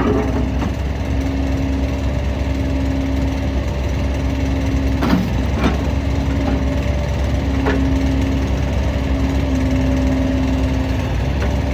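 Engine of an MT100 walk-behind skid steer loader running steadily at a constant speed, with a few short knocks about five and eight seconds in.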